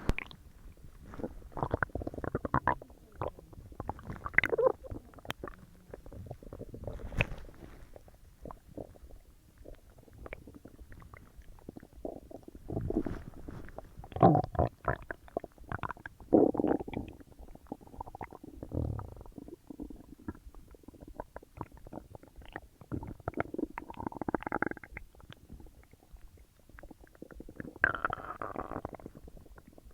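Human stomach and intestines gurgling and rumbling as a large meal digests: irregular gurgles and pops, with two longer, higher-pitched squeaky gurgles in the last third.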